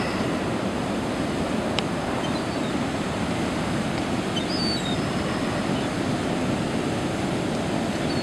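Heavy storm surf from a hurricane swell, big and sloppy, breaking and washing up the beach and around the pier pilings and rock jetty: a steady, unbroken rush of churning water.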